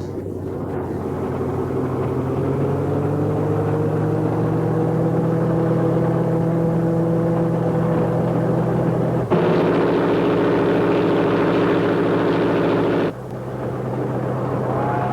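A train's motor running, its pitch rising over the first few seconds as it speeds up. About nine seconds in, a louder, buzzier sound cuts in for about four seconds, then stops suddenly.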